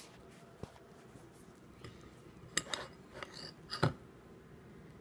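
A few short clinks and knocks of kitchen bowls and utensils being handled, the loudest a knock about four seconds in.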